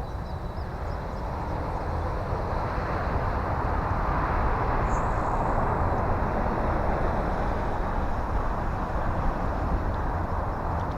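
E-flite T-28 Trojan electric RC plane's motor and propeller in flight, a steady whir that swells as it passes closest about four to six seconds in and then eases off. Wind rumble on the microphone underneath.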